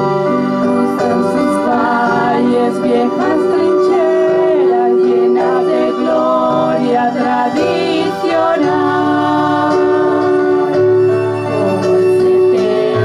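Two girls singing a slow song into microphones, with live acoustic guitar, keyboard and violin accompaniment; they hold long notes with vibrato.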